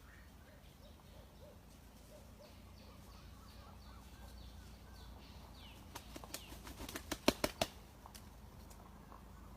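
A bird's wings flapping in a quick run of beats about six seconds in, over faint bird chirps.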